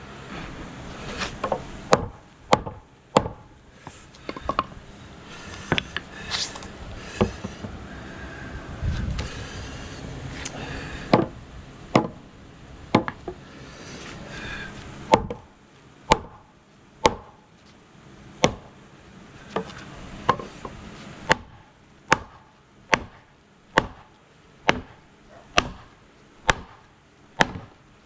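Hammer striking wooden posts to drive a notched timber joint together. Scattered knocks at first, then a steady run of blows, a little faster than one a second, in the second half.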